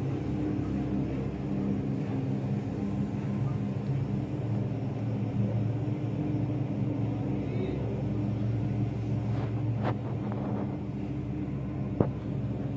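Gondola cable car running through its station, heard from inside the cabin: a steady low mechanical hum with several held tones. A single sharp click comes near the end.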